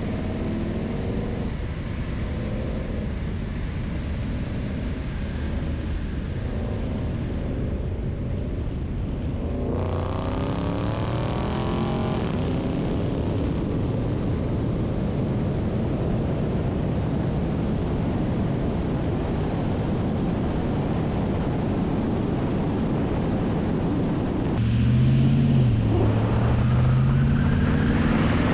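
Cars accelerating hard at speed, heard through heavy wind and tyre roar on a car-mounted outside microphone. The engine note rises, with a brief drop and climb again near the end, like an upshift.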